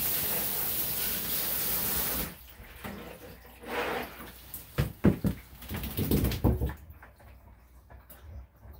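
Handheld shower head spraying water onto a small wet dog in a bathtub, a steady hiss that cuts off suddenly about two seconds in. Then scattered splashes and knocks of water and handling in the tub for a few seconds.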